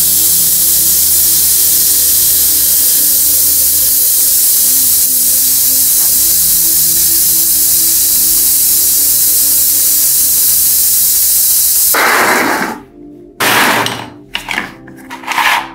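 Loud, steady spray hiss that cuts off about twelve seconds in, followed by three or four short bursts of spray.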